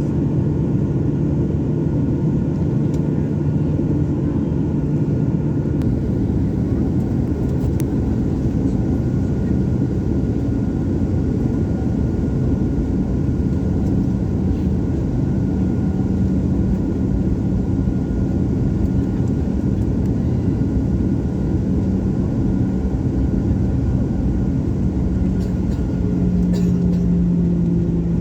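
Jet airliner engines running steadily: a loud, constant rumble with a low hum that shifts in pitch a few times.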